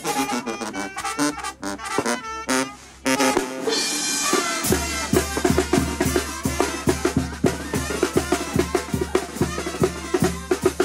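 Live banda brass band playing: brass chords first, then a cymbal crash about three and a half seconds in, after which the tambora bass drum, cymbals and tuba take up a steady, fast beat.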